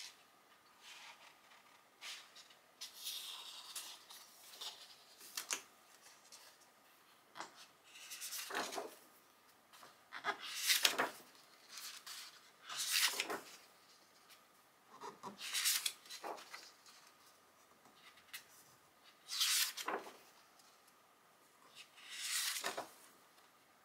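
Pages of a hardcover dummy photobook being turned by hand one after another. Each turn makes a papery swish or rustle, with about a dozen of them coming every one to three seconds.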